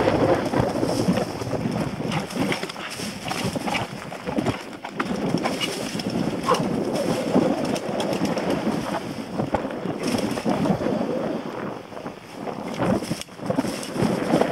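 Mountain bike rolling fast down a leaf-covered dirt singletrack: knobbly tyres crunching over dry leaves and soil, with a constant clatter of small knocks and rattles from the bike over the bumps.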